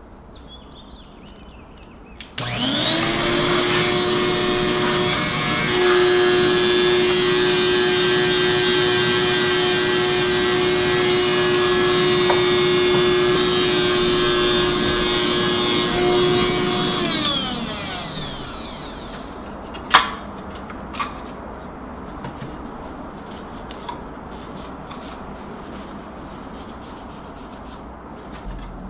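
Small vacuum cleaner switched on, spinning up quickly to a steady high-pitched whine as it sucks dust out of a desktop computer's case, then switched off about fifteen seconds later, its pitch falling as the motor winds down. A couple of sharp clicks follow as the case is handled.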